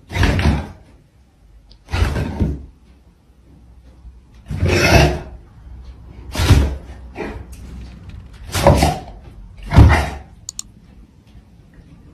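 A dog and a cat play-fighting: about six short, rough bursts of scuffling noise, one every second or two, with quiet between them.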